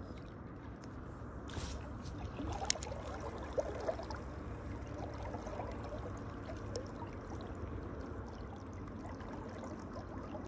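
Shallow river water flowing and trickling steadily over a riffle, with a few sharp clicks from the spinning reel about two seconds in.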